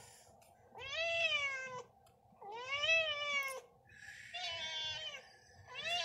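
Cat meowing repeatedly: four drawn-out meows, each rising and then falling in pitch, with short pauses between them.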